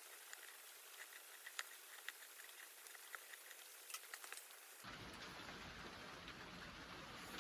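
Faint crackling of a small wood fire in a Picogrill-style fire pit: scattered sharp little pops and ticks over a thin hiss. About five seconds in the sound changes abruptly to a steady low rumbling noise.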